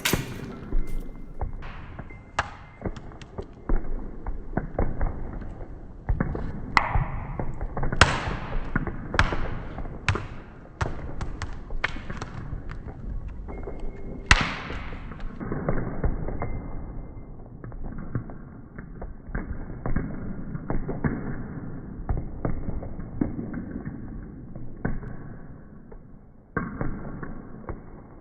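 A dense, irregular patter of knocks, taps and thuds from kinetic percussive objects, layered over one another, with a few louder, brighter strikes that ring on briefly.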